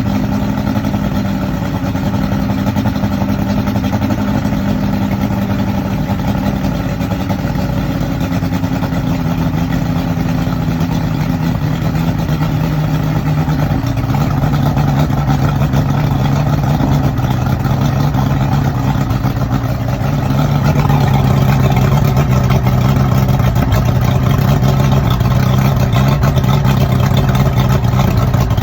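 Yamaha OX66 150 V6 two-stroke outboard idling on a flushing hose, rough and low; its engine note sags downward in steps, about halfway through and again later. This is the idle speed dropping toward a stall, a fault the owner later cured by adjusting the oil pump (oiler) arm.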